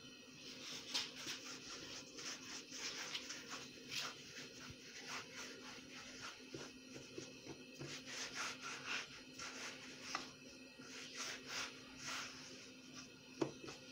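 Hands rolling and pressing small pieces of gnocchi dough against a countertop: a run of soft, irregular rubbing scrapes, with a faint steady hum underneath.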